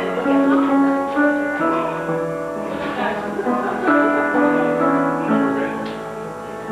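Instrumental music: a melody of held notes over changing chords that moves along steadily.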